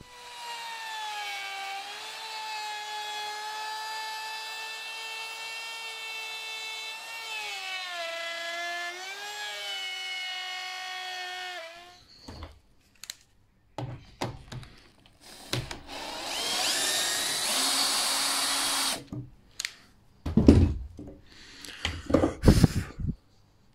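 Handheld router running with a steady high whine, its pitch dipping as it cuts a hinge recess in a door edge through a plywood jig, then switched off about twelve seconds in. Scraping noises follow, then several loud knocks near the end.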